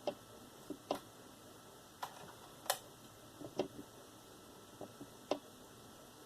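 Irregular sharp clicks and light taps of small plastic and metal laptop parts being handled and fitted back together, about nine in all, the loudest a little before the middle.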